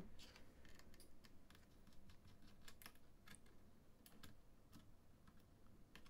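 Faint, irregular light clicks and ticks of a small screwdriver working a screw out of a laptop's plastic bottom case.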